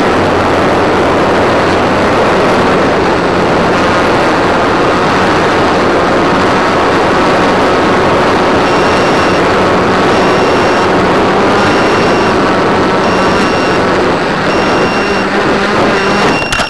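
A model airplane's motor and propeller running steadily in flight, heard as loud wind rush on the onboard camera. From about halfway through, a short high beep repeats about every second and a half.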